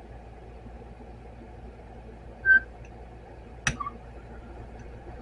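Small metal clinks from hand tools and parts being worked on a Honda CB900 carburetor: a short ringing tink about two and a half seconds in, then a sharp click with a brief ring about a second later, over a steady low hum.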